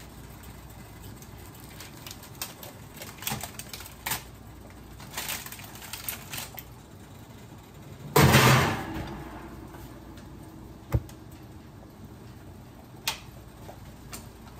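Kitchen clatter as a roasted chicken is taken out of the oven and set down on the counter: light metal clinks and knocks, then one loud heavy thud about eight seconds in, followed by two single knocks.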